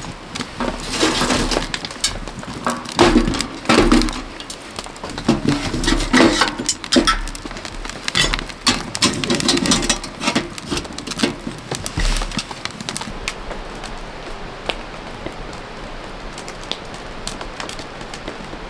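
Firewood crackling and popping in a small wood-burning camp stove. The sharp crackles come thick and irregular at first and thin out in the second half.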